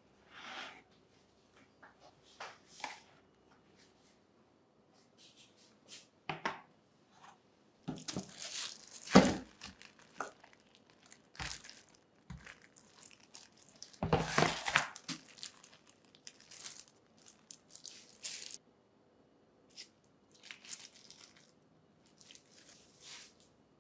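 Flexible plastic mooncake jelly moulds being handled and pressed with plastic-gloved hands to release set agar-agar jelly: scattered crinkling and rustling of thin plastic, with two louder bursts of crinkling partway through.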